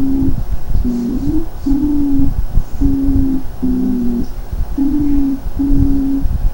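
Stridor in a child's breathing: a harsh, steady-pitched tone on each breath, heard on both breathing in and breathing out, about eight short breaths in quick succession over a low rumble. It is the sign of turbulent airflow through a narrowed larynx and trachea, as in laryngotracheitis.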